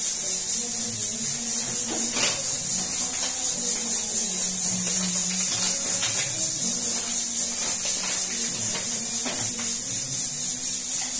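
Kitchen exhaust fan running steadily: a constant motor hum under a high airy hiss, with a few light clicks of things being handled.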